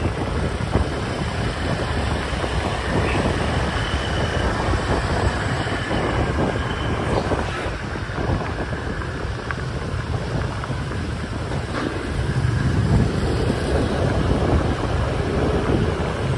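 Steady wind rumble on the microphone from moving along in the open air, over the noise of city street traffic.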